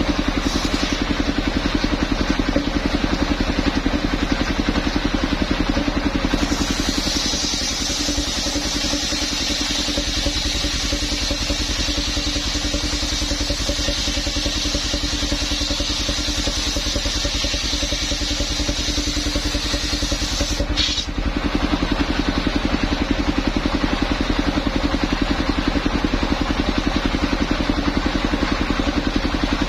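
Engine of a mobile circular saw machine running steadily. From about six seconds in to about two-thirds through, a higher hissing noise rides over it as the blade cuts through the coconut trunk. There is a short break about 21 seconds in.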